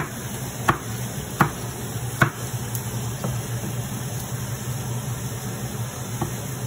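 Kitchen knife chopping on a cutting board: four sharp strokes about three-quarters of a second apart, then a couple of fainter ones, over a steady low hum.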